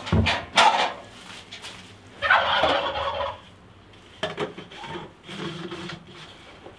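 Plastic chick waterers and a glass bottle being set down and handled on a metal pan, with several knocks in the first second and light clunks later. About two seconds in, a loud rough rattling sound lasts a little over a second.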